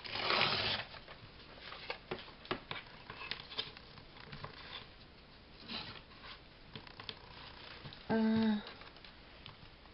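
Paper being handled: sheet-music paper rustling, crinkling and tapping on a desk, with a louder rustle in the first second and scattered small clicks after it. A short hum or voiced sound comes about eight seconds in.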